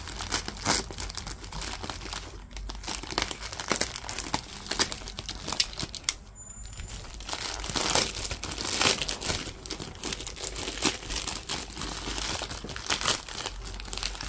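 Plastic poly mailer envelope and the plastic wrap inside crinkling and rustling as they are torn open and handled by hand: many irregular sharp crackles, with a brief lull about six seconds in.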